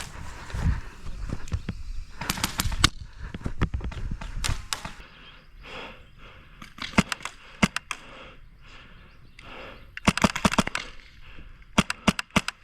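Airsoft guns firing, single shots and quick bursts of sharp cracks in several spurts, the thickest bursts about two, ten and twelve seconds in.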